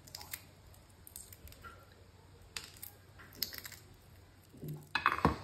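Eggshell being peeled by hand off a boiled egg: scattered faint crackles and clicks as pieces of shell break away, with a couple of louder knocks near the end.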